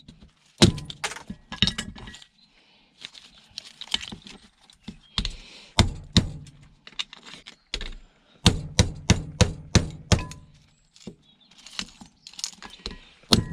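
Irregular knocks, clicks and clinks of hard plastic and metal parts being pried apart and handled while a small electronic device is torn down for scrap, in clusters with short pauses.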